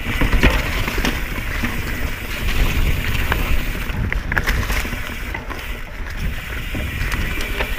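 Mountain bike riding over rooty, rocky singletrack: a steady wind rumble on the camera microphone, with tyre noise and scattered clicks and rattles from the bike.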